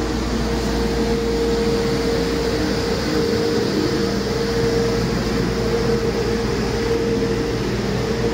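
2015 Paccar MX13 inline-six turbodiesel truck engine running steadily on a test stand, a deep rumble with a steady whine over it.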